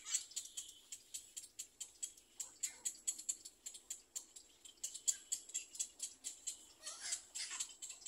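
Little egret chicks making rapid, irregular high ticking calls, several a second, with a few louder, fuller calls near the end.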